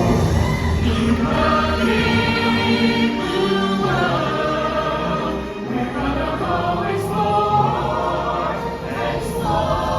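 Stage-show music playing loudly: a choir of voices singing over a full band.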